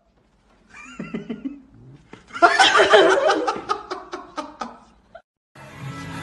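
A short high-pitched call about a second in, then a burst of loud laughter with rapid pulses that fades out. Music starts near the end.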